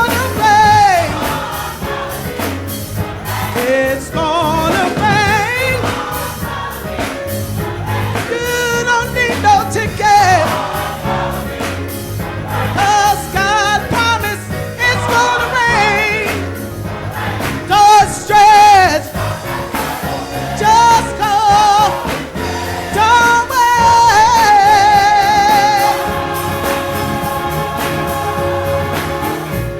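Gospel choir singing with accompaniment, voices sliding and wavering with vibrato, ending in a long held note.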